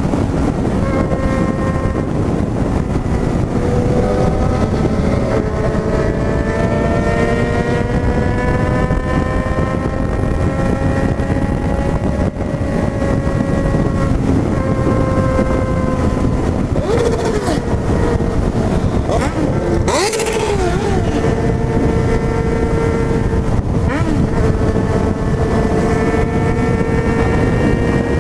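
Yamaha XJ6's inline-four engine with an open, de-baffled exhaust, cruising at a fairly steady speed. The engine note climbs slowly over several seconds and eases back, over wind and road rush, with a brief rush of noise about twenty seconds in.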